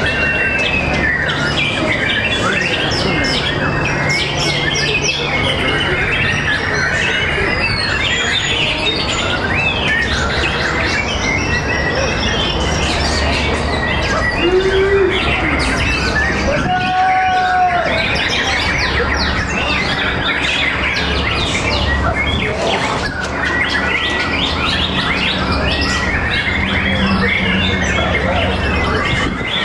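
Many white-rumped shamas (murai batu) singing at once in a songbird contest: a dense, unbroken tangle of fast chirps, whistles and trills, over a low steady hum.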